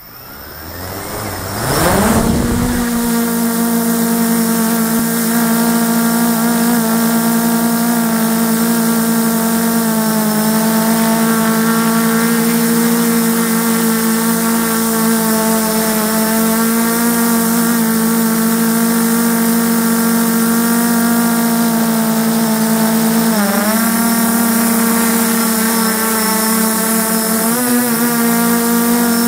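FPV drone's electric motors and propellers spin up with a rising whine over about two seconds for takeoff, then run at a steady, loud buzz in flight. The pitch wobbles a little and dips briefly twice near the end. It is heard from the drone's own onboard camera, close to the motors.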